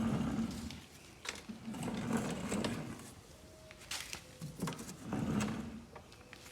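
Screwdriver driving a screw into the plastic air filter housing of a lawnmower. It turns and scrapes in three short spells, with a few sharp clicks between them.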